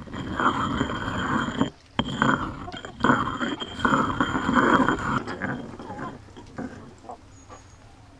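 Stone mortar and pestle grinding and stirring a wet herb paste of basil, parsley, olive oil and lemon juice: stone scraping and wet squelching in runs, with a short break near two seconds. It stops about five seconds in, leaving only a few faint clicks.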